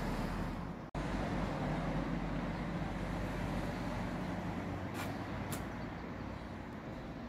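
Steady low rumbling background noise with no clear single source, broken by a momentary dropout about a second in, and two short sharp clicks about five seconds in.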